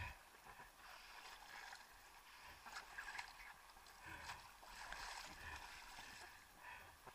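Faint water splashing and lapping against a small inflatable craft close to the microphone, coming in uneven washes.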